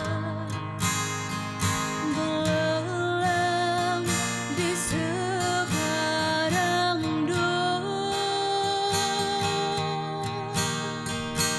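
A girl singing a Malay gospel song into a handheld microphone, holding long notes with vibrato, over a plucked and strummed acoustic guitar accompaniment.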